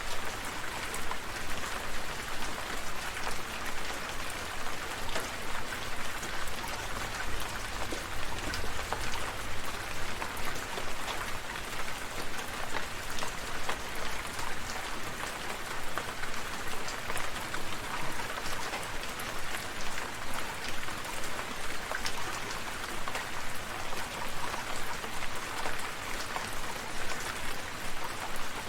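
Steady rain falling, a continuous hiss scattered with many individual drops tapping.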